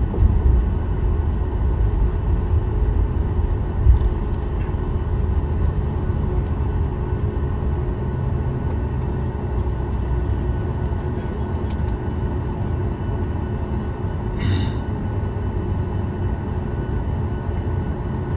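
Cabin noise of a Boeing 737 MAX 8 on the ground after landing: a steady hum from the idling engines and air system over a low rumble. A brief higher-pitched sound comes about fourteen seconds in.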